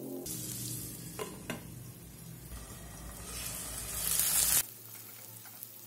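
Diced potato, brinjal and long beans sizzling in hot oil in a kadhai as a spatula stirs them, with two light knocks about a second in. The sizzle grows louder, then cuts off suddenly after about four and a half seconds, leaving a faint hiss.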